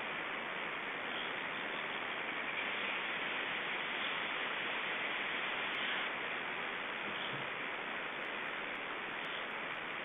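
Steady, even hiss of an outdoor nest webcam's microphone.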